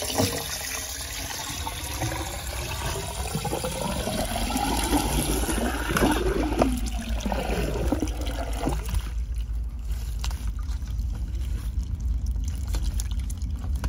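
Water running from a garden hose into an open PVC kitchen drain pipe, flushing the grease-clogged line with nothing backing up. The rushing and trickling goes on steadily, its pitch sweeping up and down for several seconds before it settles into a steadier rush.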